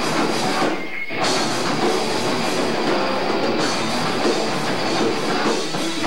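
Loud rock band playing live: distorted electric guitar, bass and drums, heard through a camcorder microphone from within the crowd.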